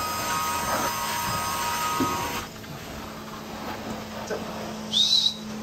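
Truck-mounted carpet cleaner's extraction wand drawing air and water through its head as it is stroked over the carpet: a steady whine over a low hum. The whine cuts off abruptly about two and a half seconds in while the hum carries on, and a short high squeak comes near the end.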